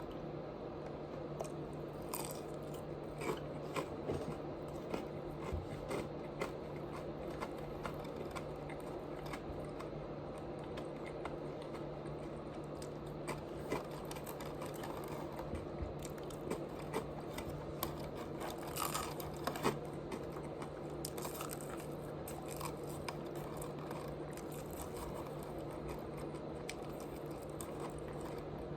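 Close-miked chewing and biting of food, with scattered crunches and small wet mouth clicks, over a steady low hum.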